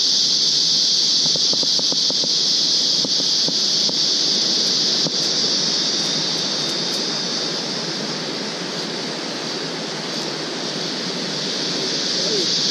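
Steady high-pitched drone of a forest insect chorus, over a lower steady rushing noise that dips slightly in the middle.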